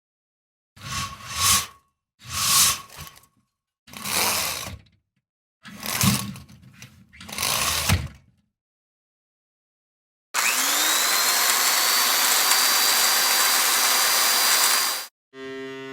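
A run of separate sound effects: five short noisy swishes about a second apart, then after a pause a loud, steady mechanical whirr with a whine that rises and then holds, lasting about five seconds and cutting off suddenly.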